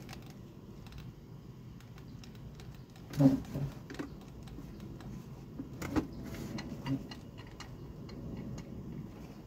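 Plastic clicks and knocks from a Laurastar steam iron and its boiler base being handled and its switches worked, with a louder thump about three seconds in and smaller ones around six and seven seconds.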